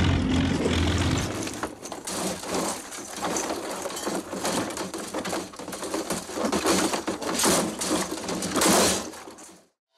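Lamborghini Miura tumbling down a rocky mountainside: a run of irregular crashes and clatters of metal, rock and debris, after a low hum in the first second or so. The sound fades out just before the end.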